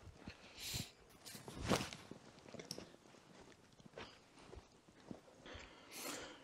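Faint, irregular crunches of footsteps on packed snow, about one a second.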